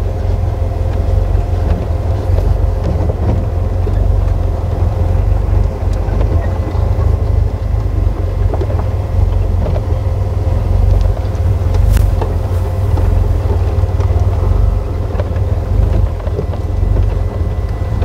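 Engine of an open safari vehicle running, a steady low rumble with a constant hum over it, and one sharp click about two-thirds of the way through.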